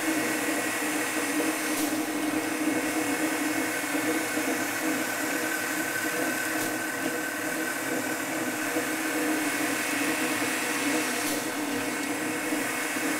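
Saw-blade polishing machine running steadily as its polishing head works the spinning steel body of a carbide-tipped saw blade: an even machine noise with a low hum and a higher whine over it.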